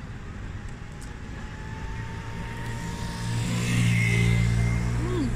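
A motor vehicle's engine running close by in street traffic, its low steady hum growing louder to a peak about four seconds in.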